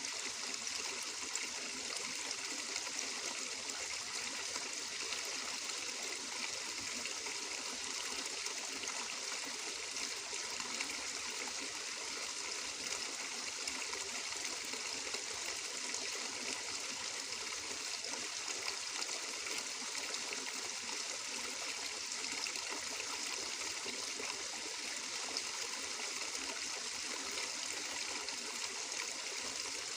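Flowing water running steadily, a continuous trickling hiss with a fine bubbling texture and no breaks.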